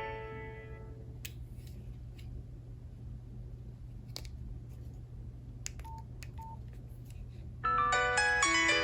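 Nokia 5610 XpressMusic phone: a ringtone's last notes die away, then a few sharp key clicks and two short identical keypad beeps as the next ringtone is selected. Under this runs a low steady hum. Near the end the next polyphonic ringtone melody starts playing.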